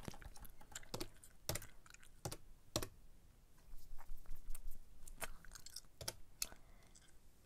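Sharp, irregularly spaced taps and clicks, about a dozen, with a quick cluster a little past the middle.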